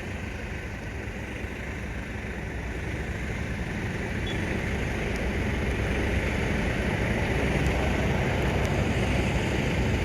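Steady, low engine rumble of vehicles or machinery, growing slowly louder.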